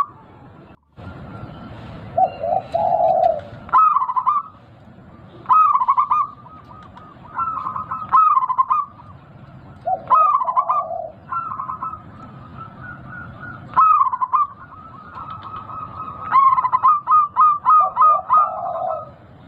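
A big-voiced local zebra dove (perkutut) cooing in repeated short phrases of quick, pitched coos, ending in a run of about eight rapid coos near the end.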